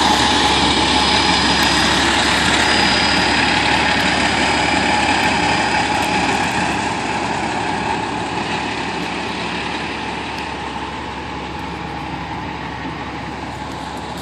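Fire truck's diesel engine idling steadily, growing quieter over the second half.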